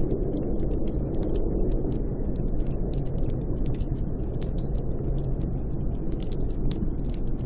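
Snowstorm wind howling steadily with a low rumble and a wavering moan, over many quick, sharp crackles.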